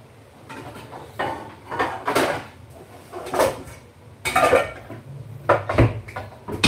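Dishes and cutlery clattering as they are handled: a run of short knocks and clinks, about eight in all, with the loudest near the middle and near the end.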